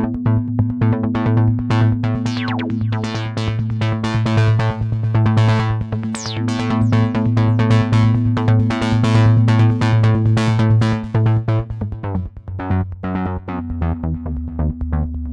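Minimal experimental techno played live on a drum machine/sampler and synth keyboard: a rapid pulse of short percussive hits over a sustained synth bass and tonal keyboard lines. About twelve seconds in, the bass drops lower and the groove thins out.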